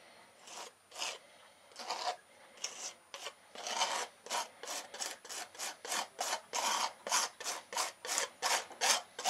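Metal painter's knife scraping over setting cement, smoothing wet cement into surface cracks. It starts with a few slow strokes, then scrapes quickly back and forth at about three strokes a second.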